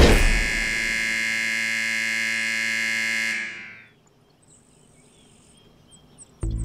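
Scoreboard horn giving one long steady buzz of about three and a half seconds that then fades away: the end-of-game buzzer with the clock run down to 0:00. A few faint high chirps follow, and music comes in near the end.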